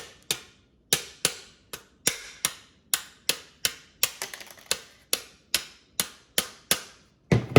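An adjustable wrench striking a stuck coaxial jack on a power strip over and over to knock it loose: sharp knocks at nearly three a second, with a heavier knock near the end.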